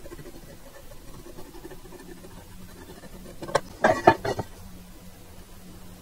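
A quick cluster of short knocks and clatters about three and a half to four and a half seconds in, as a quarter-inch steel plate is lifted and shifted on a wooden workbench. A faint steady hum runs underneath.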